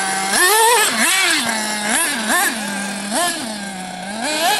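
Small two-stroke glow-fuel engine of a nitro RC buggy idling with a steady buzz, blipped about six times in quick throttle stabs, its pitch shooting up and dropping straight back each time; the biggest rev comes about half a second in.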